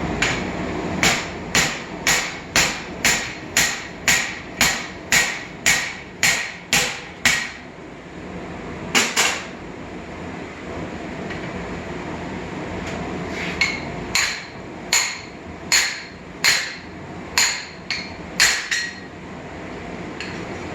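Hand hammer striking hot steel, driving a forged axe head's eye over a steel drift at about two blows a second. A steady run of about a dozen blows is followed by a single blow, a pause, and a second run of about nine blows, some of them ringing.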